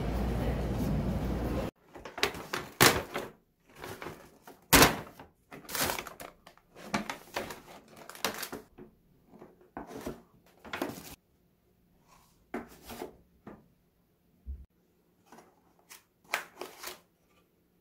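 Kraft paper takeaway bag crinkling and rustling as it is unpacked, with light knocks as molded-pulp burger boxes and a paper fries bag are set on a table and a dull thud about fourteen seconds in. A steady rush of background noise cuts off abruptly less than two seconds in.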